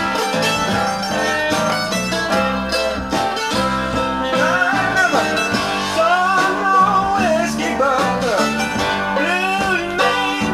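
Blues-country rock record playing back from a vinyl LP on a turntable: an instrumental passage led by plucked guitar, with notes that slide up and down in pitch.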